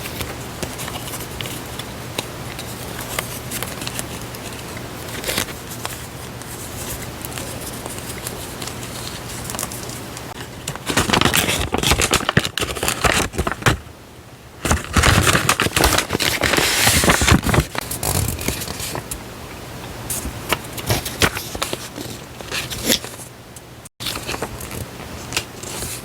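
Paper stationery and its wrapping handled close to the microphone: light rustles and taps, then two louder stretches of crinkling and crackling about eleven and fifteen seconds in, over a steady low hum.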